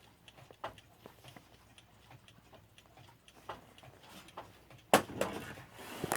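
Key-wound mechanical clock ticking faintly and regularly, then a sudden loud knock near the end, followed by handling noise.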